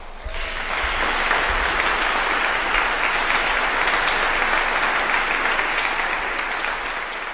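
Concert audience applauding: a dense, steady clapping that starts at once and begins to die down near the end.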